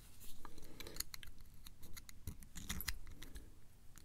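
Irregular small metallic clicks and scrapes as a brass pin-tumbler lock cylinder is handled and worked with a thin metal tool.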